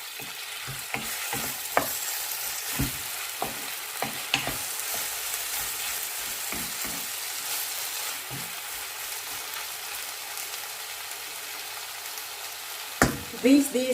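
Pork belly and tomatoes sizzling in a frying pan, with a steady hiss. A cooking utensil knocks and scrapes against the pan as the food is stirred, mostly in the first half, with a sharp knock near the end.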